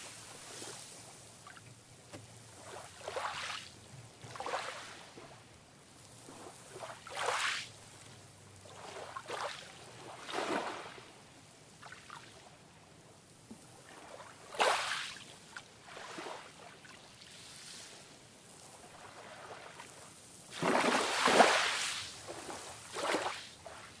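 Calm sea: small waves lapping and splashing every few seconds at uneven intervals over a faint steady wash, with the biggest splash about three-quarters of the way through.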